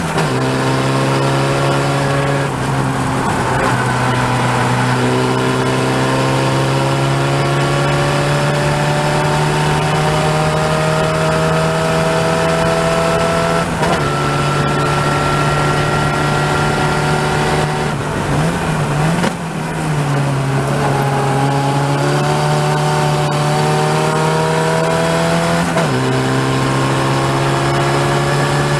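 Open-wheel single-seat race car's engine heard from the cockpit at full throttle. Its note climbs steadily and drops back sharply several times as the driver shifts up. There is a short lift and wavering revs about two-thirds of the way through before it pulls again.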